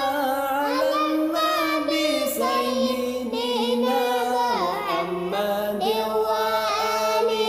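A high singing voice in a song, holding notes and sliding between them in ornamented glides, without a break.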